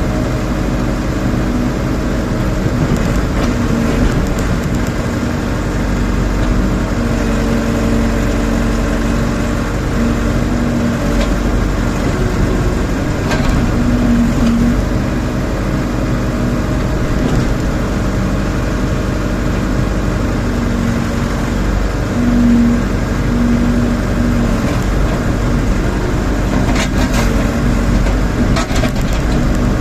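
Rondon backhoe loader's diesel engine running steadily while it works, with a tone that swells and drops every few seconds and a few short knocks.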